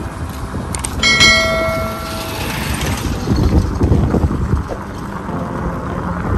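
A bell struck once about a second in, its clear tone ringing out and fading over about a second and a half, over a steady rumble of wind on the microphone.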